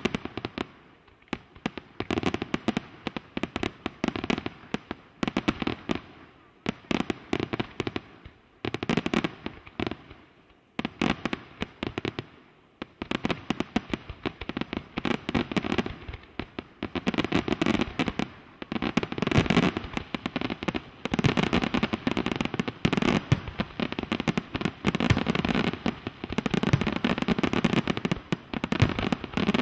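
Fireworks display: aerial shells and ground effects going off in volleys of rapid bangs and crackle with short gaps between them, becoming an almost unbroken barrage about halfway through and growing louder toward the end.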